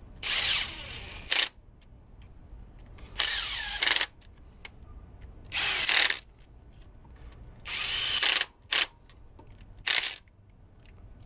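Cordless impact driver running 10 mm water pump bolts in, in about six short trigger bursts with a rising whine in some, feathered by trigger control rather than a torque wrench.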